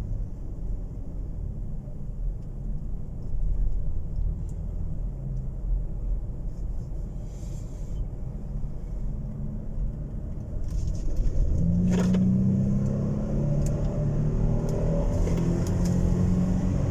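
Ford Expedition's twin-turbo 3.5-litre EcoBoost V6 driving, with a low rumble; about twelve seconds in it gets louder and its note climbs as the throttle is pressed hard. It pulls without stumbling, its cylinder-6 misfire cured by new spark plugs.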